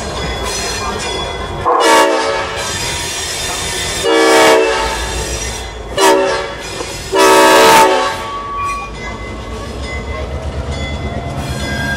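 EMD CF7 diesel locomotive's air horn blowing the grade-crossing signal: two long blasts, one short, then one long. A low, steady diesel engine rumble runs underneath as the locomotive approaches.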